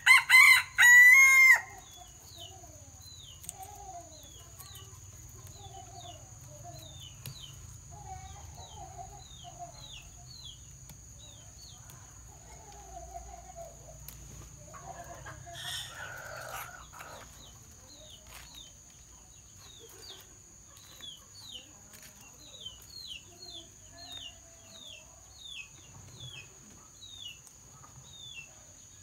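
A rooster crows loudly once, a full cock-a-doodle-doo ending on a held note. Quieter chicken clucking and a small bird's repeated short falling chirps follow.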